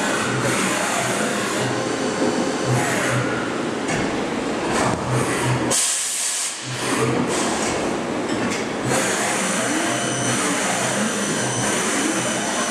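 Cincinnati V-CNC500 vertical machining centre running through its cycle, with rising and falling drive whines as the axes traverse over a steady pulsing machine hum. About six seconds in, a short hiss of air comes as the swing-in carousel makes an automatic tool change.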